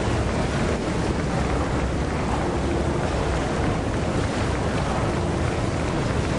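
Hard-rock tunnel boring machine's cutterhead grinding through the last of the rock face as it breaks through: a steady, loud grinding noise with a deep low end.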